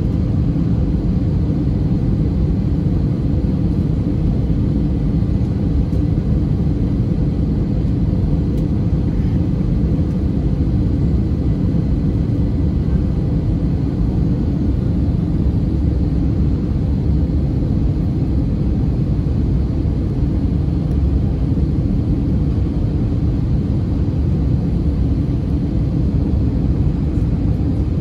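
Steady low rumble of engine and airflow noise inside the cabin of an Airbus A320neo on final approach, heard at a window seat beside the engine, with a faint steady high tone over it.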